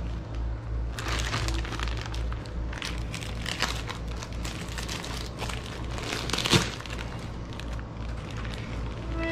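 Clear plastic wrapping crinkling and rustling irregularly as an accordion is worked out of it by hand, with the sharpest crackle about six and a half seconds in. A steady low hum runs underneath.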